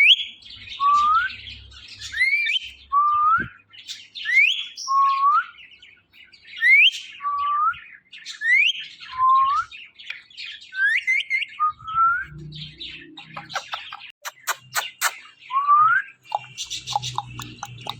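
Pet talking parrot giving a run of short whistled calls, each a high upward-gliding note followed by a lower rising one, repeated about every second and a half. A few sharp clicks come about fourteen seconds in.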